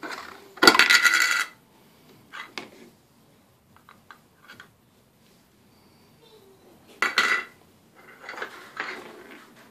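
Toy dishes and small metal toy baking pans clattering as they are knocked about, in a few separate bursts with some metallic ringing. The loudest burst comes about a second in and another near seven seconds, with lighter knocks in between.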